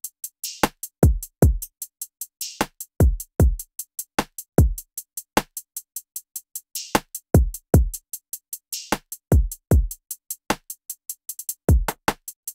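Trap drum loop playing through a bus compressor: deep 808 kicks whose pitch drops after each hit, a snappy snare, and fast steady hi-hats, with a quick hi-hat roll about three-quarters of the way in. The drums are squeezed by the BUSTERse compressor at around 7 dB of gain reduction.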